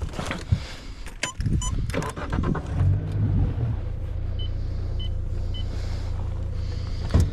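Honda 90 hp four-stroke outboard starting: knocks and short beeps in the first two seconds, then the engine settles into a steady low idle. Three short electronic beeps sound over the idle, and a thump comes just before the end.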